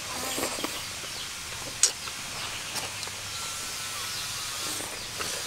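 Close-up mouth sounds of someone biting and chewing grilled pork off a bamboo skewer, with one sharp click about two seconds in.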